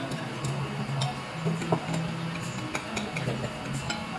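Metal cutlery clicking and scraping on ceramic plates while eating: a run of light, irregular clinks, one a little sharper than the rest just before halfway, over a low steady background.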